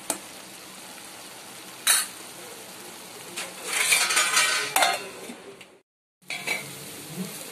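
Tomato-onion masala sizzling in a steel frying pan while a spoon stirs and clinks against the pan, with a sharp click about two seconds in and a louder scraping stir ending in a clink a little before five seconds. The sound cuts out for a moment near six seconds, then the sizzle resumes.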